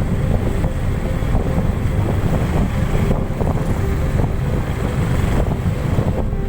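Wind buffeting the microphone of a moving vehicle: a loud, steady low rumble.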